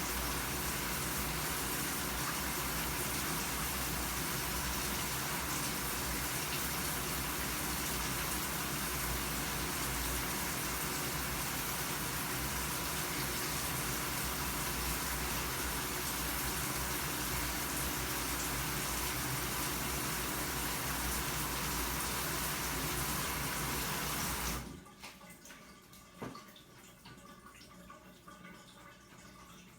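Shower running: a steady hiss of water spray that cuts off sharply near the end as the water is shut off, leaving a few faint ticks.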